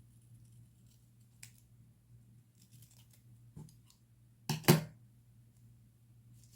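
Scissors cutting during diary decorating: two quick sharp snips close together about four and a half seconds in, with faint paper rustles and small ticks around them.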